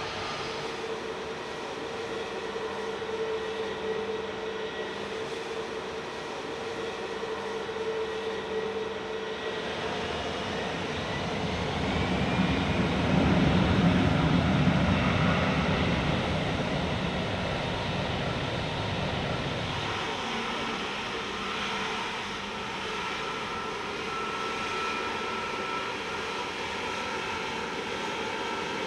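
Jet airliner engines running as a plane passes: a steady whine with a deep rumble that builds to its loudest about halfway through, then drops away about two-thirds of the way in.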